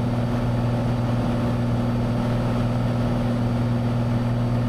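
Cessna 182's six-cylinder piston engine and propeller droning steadily in flight, heard inside the cabin.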